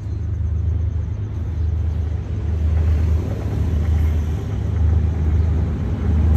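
Vietnam Railways D19E diesel-electric locomotive approaching along the track, its deep engine rumble growing steadily louder.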